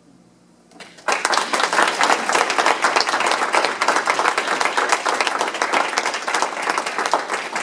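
A small group of listeners applauding, the clapping starting about a second in and going on steadily.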